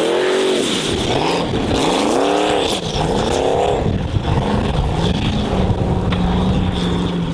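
Formula Offroad race car engine revving hard in repeated surges, its pitch climbing and dropping three or four times in quick succession, then settling to a steadier note in the last few seconds.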